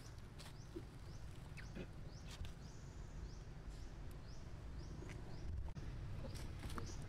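High, short chirps that rise in pitch, repeating about twice a second, from a small animal, over a steady low rumble.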